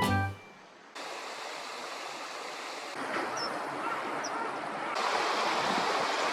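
Steady rushing of flowing water outdoors, stepping louder twice as the footage changes, with two faint short bird chirps in the middle. Just at the start, the tail of background music.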